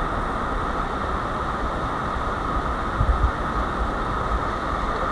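Waterfall rushing as a steady, even roar of water, with a brief low knock about three seconds in.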